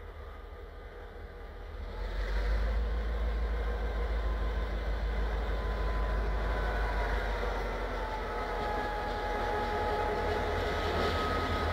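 Diesel locomotive running light as it approaches. The low engine drone swells about two seconds in and holds, with a thin high whine above it that sags slightly in pitch as it nears.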